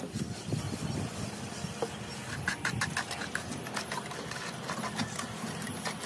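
A steel trowel scrapes and taps wet cement mortar in a metal pan and a wooden float rubs over fresh cement plaster. Quick clicks come about five a second near the middle, over a steady low motor hum.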